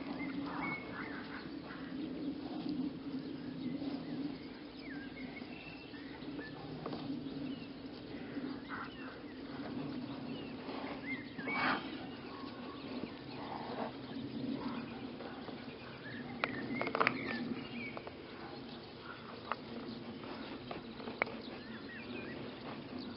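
Small birds chirping now and then over a steady low hum, with a few sharp knocks, the loudest about 12 and 17 seconds in.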